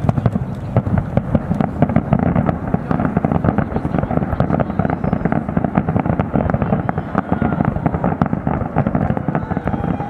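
Fireworks display: a dense, unbroken barrage of bangs and crackles.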